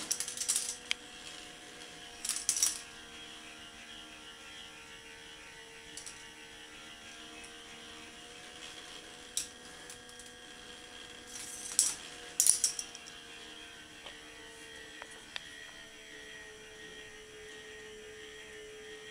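K'nex ball machine running: a steady electric motor hum from its drive, with several short bursts of plastic clattering and clicking as balls roll and drop through the plastic track pieces, the loudest bursts near the start, about two seconds in, and about twelve seconds in.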